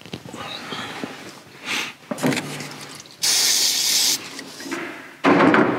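Light knocks, then a spray hissing loudly for about a second, starting about three seconds in, and a shorter, lower-pitched burst of hiss near the end.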